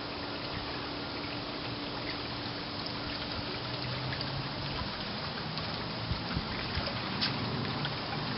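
Swimming pool water trickling steadily, with a few faint clicks in the second half.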